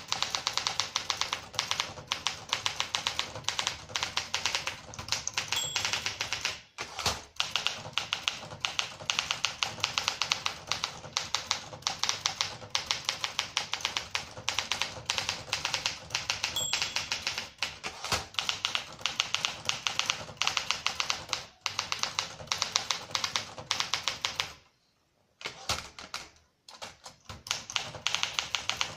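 Olympia SM9 manual typewriter being typed on steadily: a rapid run of sharp key strikes, several a second. Two short high pings come about eleven seconds apart, and there is a brief pause near the end.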